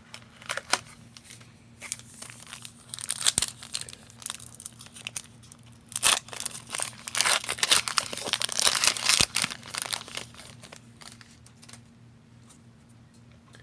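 A 2018 Panini Unparalleled trading-card pack wrapper being torn open and crinkled, with scattered small clicks at first and the loudest tearing and crackling from about six to ten seconds in.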